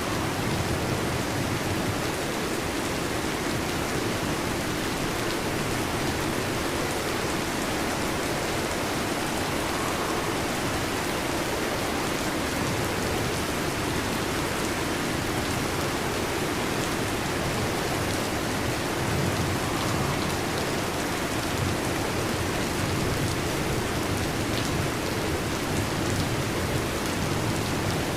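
Heavy rain falling steadily, an even, unbroken hiss of drops on a surface.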